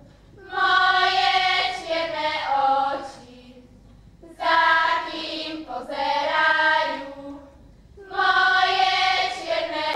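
Children's folk choir singing together, in three phrases of about two and a half seconds each with short breaks between them.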